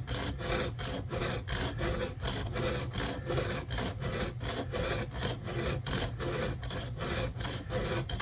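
Hand file rasping over the cutter teeth of a chainsaw chain in quick, even strokes, about three a second: sharpening teeth dulled and chipped by hitting a rock.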